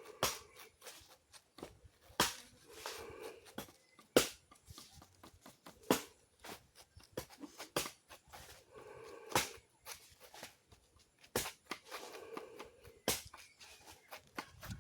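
Irregular sharp clicks and taps, a dozen or so, with a few soft, brief pitched sounds, calls or distant voices, in between.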